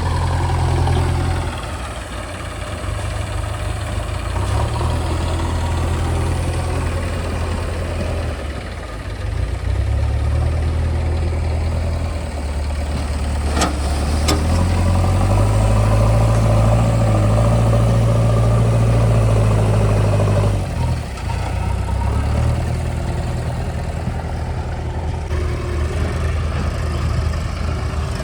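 JCB 3DX backhoe loader's diesel engine working, its revs shifting up and down several times and running hardest for a few seconds past the middle. Two sharp clanks come about halfway through.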